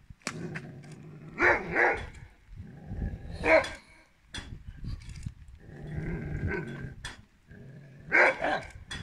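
Curly-coated retriever barking in short clusters, with lower growling between: a pair of barks about a second and a half in, another bark a couple of seconds later, a longer bout about six seconds in, and a last pair near the end. These are warning barks at a person advancing on it in a crouch.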